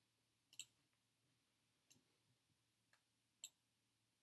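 A few faint, sharp computer clicks, spaced about a second apart, over near silence. They come from clicking through a right-click menu to paste a copied group of images.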